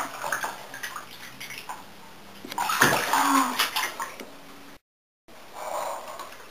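Bathwater sloshing and splashing as a child moves about in a filled bathtub, loudest in a burst about three seconds in.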